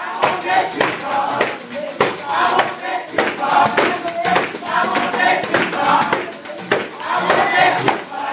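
Handheld jingle tambourines shaken and struck in a steady, driving rhythm, with a group singing and clapping along.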